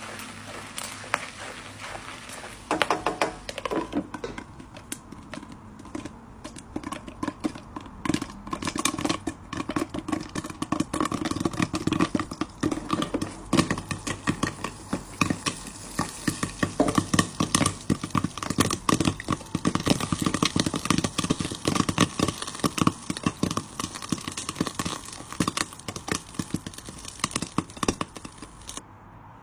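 Popcorn cooking in a hot pan: a dense, irregular crackling and popping that thickens about eight seconds in and cuts off suddenly near the end.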